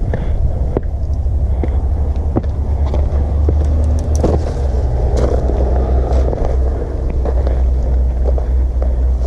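Wind rumbling on the microphone during a hill walk, with scattered footsteps and small clicks.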